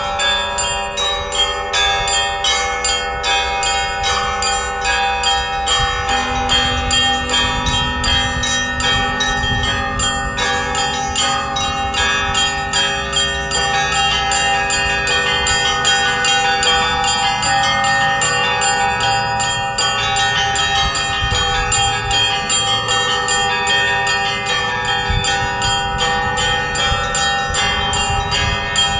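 Russian Orthodox festive church bell ringing: several church bells struck in a fast, continuous peal, quick small-bell strikes over the longer ringing tones of larger bells. A lower bell tone joins about six seconds in.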